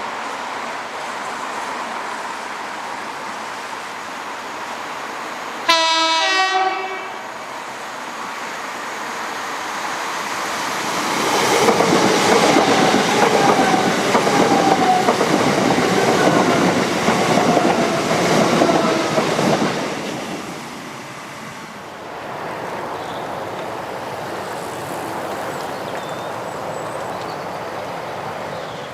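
A single loud train-horn blast, about a second long, is played by a level crossing's supplementary audible warning device, a loudspeaker sounding a recorded horn to warn of an approaching train. A few seconds later a train passes for about nine seconds, a rumble with whining tones that slowly fall in pitch, then fades away.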